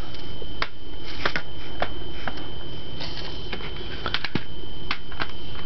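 Plastic CD jewel cases clicking and clacking as they are handled and sorted through, in a dozen or so irregular sharp clicks, over a steady faint high whine.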